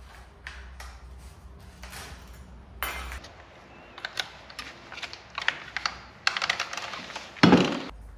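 Irregular clicking and clanking of hand tools and metal parts being handled, growing busier toward the end with a louder clatter about seven and a half seconds in.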